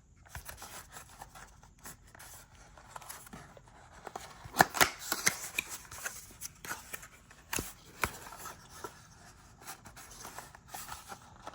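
Hands opening and handling cardboard product packaging: scattered rustles, light taps and clicks, with a few sharper knocks around the middle.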